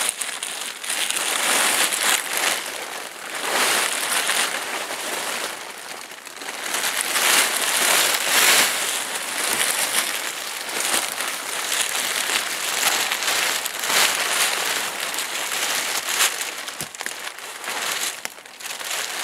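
Plastic tarp crinkling and rustling in irregular swells as it is pulled out and handled.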